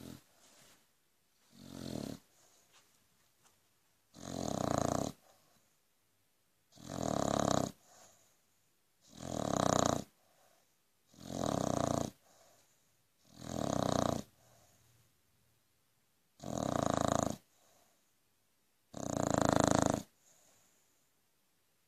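Aussie Bulldog snoring in a steady rhythm: a snore about every two and a half seconds, each lasting about a second, eight in all, the first one softer.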